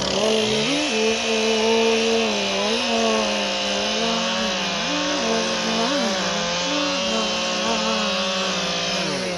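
A chainsaw engine running at a steady high speed while cutting wood. Its note briefly rises and falls back several times as the chain loads and frees in the cut.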